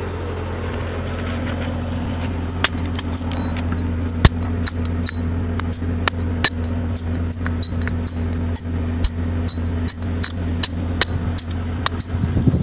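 A hammer striking a steel hand chisel against a very hard native boulder, trimming its face. From about two seconds in come sharp, ringing metallic clinks, two or three a second, over a steady engine drone from site machinery.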